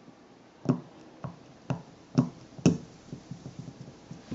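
Sharp taps on an eggshell held in the hands: five clear ones about two a second, then a run of fainter ticks near the end.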